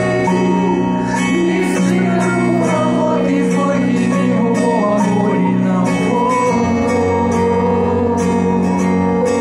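Live rock band playing over a PA: sustained keyboard chords and guitar with the singer's voice. A low bass note comes in about two-thirds of the way through.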